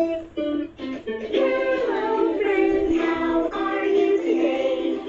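Fisher-Price Linkimals light-up musical toys playing a children's song: a few short plucked-string notes, then a sung melody with backing music from about a second in.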